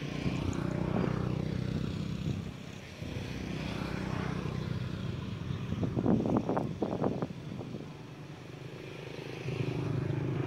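A motor vehicle engine running steadily with a low hum. A quick run of sharp knocks or clatters comes about six seconds in and is the loudest part.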